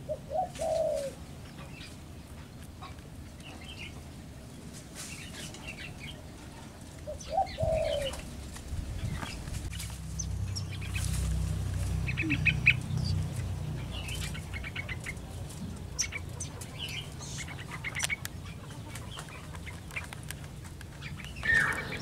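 Aviary birds giving short, scattered chirps, with wing flutters now and then. A low rumble runs for a few seconds midway.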